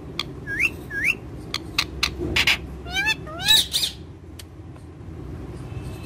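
Green parakeets calling: shrill, harsh screeches mixed with pairs of short rising whistled notes, repeated for about four seconds and then stopping.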